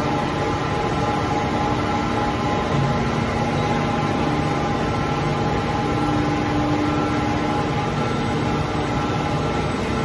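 Steady drone of running industrial machinery in a billet heating and hot-saw line, several steady hum tones over a constant mechanical noise.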